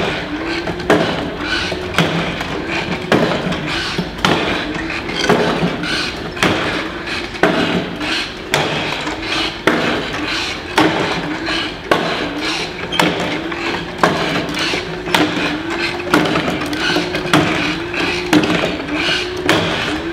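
Jointed dancing figure moving on its wires: a knock about once a second as its foot or limbs strike, with a recurring squeaky rising-and-falling tone between the knocks.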